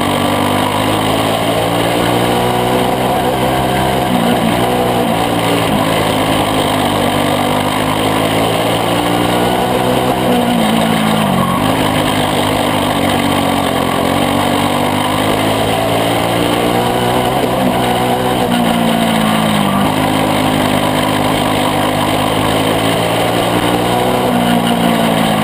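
Single-cylinder Briggs & Stratton Animal engine of a caged dirt-track kart at racing speed, heard from the cockpit. Its pitch drops and climbs again several times as it backs off and accelerates around the oval.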